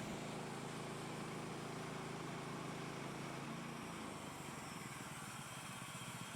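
Portable bandsaw sawmill's gas engine running steadily as it cuts the log, heard faintly; its note shifts slightly about two-thirds of the way through.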